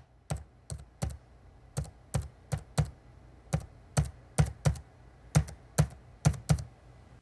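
A series of about fifteen sharp taps or knocks at uneven spacing, two or three a second, each with a dull low thump under the click.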